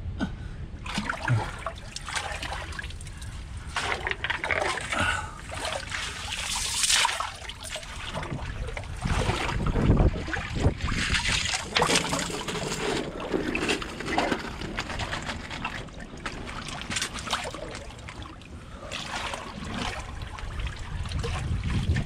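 Shallow seawater splashing and sloshing as a person wades through a rock pool and sweeps a hand net through the water, in uneven bursts. A steady low rumble of strong wind on the microphone runs underneath.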